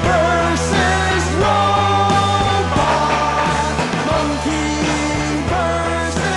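Rock song with a singing voice over guitar, bass and drums.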